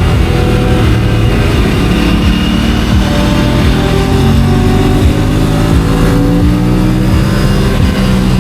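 Aprilia RS 457's parallel-twin engine running under way, its note climbing and dropping a few times as the throttle is worked, heard from a helmet chin mount.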